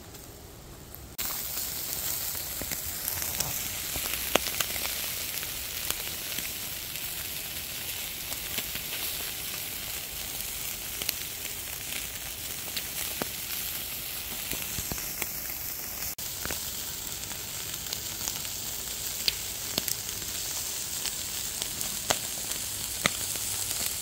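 Chicken sizzling in wire grill baskets over hot charcoal: a steady hiss with scattered small pops and crackles. It starts suddenly about a second in.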